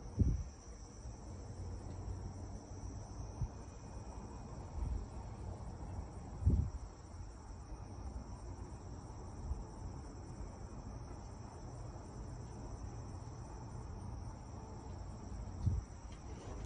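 Crickets chirping in a steady, high-pitched trill. A few brief low thumps come through now and then, the loudest just after the start and about six and a half seconds in.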